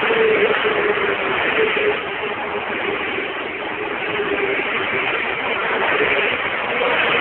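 Toyota Land Cruiser 70 Series pickups driving past one after another, their engines and tyres running. The sound swells as a close vehicle goes by near the start and again near the end.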